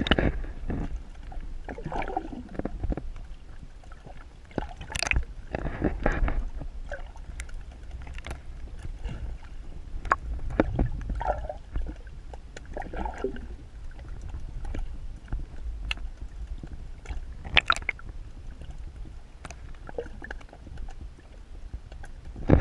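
Low wind rumble on the microphone, with scattered clicks, knocks and rustles of close handling.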